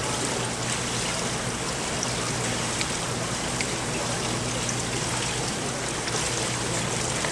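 Steady rushing, trickling water of an indoor diving pool, from the sprays that ruffle the pool surface so divers can see it.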